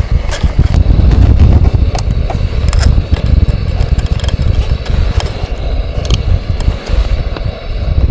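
Strong blizzard wind buffeting the microphone: a loud, gusty low rumble, with a few scattered clicks.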